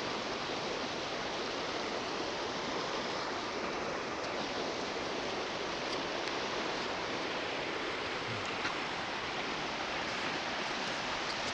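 Steady rushing of river water from a strong current, an even hiss with no change in level.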